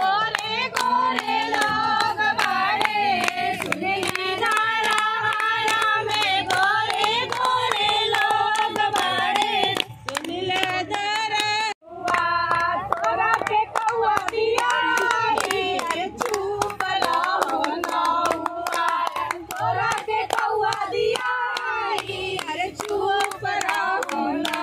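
A group of women singing a traditional wedding folk song together, of the teasing 'gaali' kind aimed at the groom's side, with hand-clapping keeping the beat. The singing breaks off for a moment just before twelve seconds in, then carries on.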